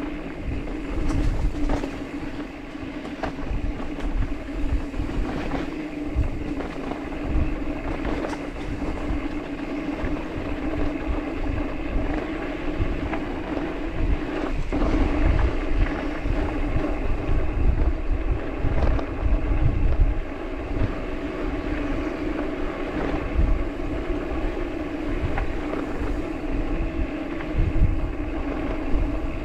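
Mountain bike rolling along a dirt trail, with tyre and drivetrain noise, a steady hum and scattered clicks and rattles. Wind rumbles in gusts on the microphone.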